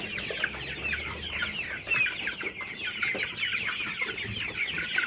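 A crowd of young chicks peeping together: a dense, unbroken chorus of short, high, falling chirps.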